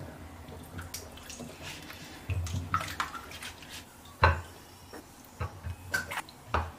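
Pears being washed by hand in water: splashing and dripping, with a few short knocks as the pears bump the basin, one sharp knock about four seconds in and several more near the end.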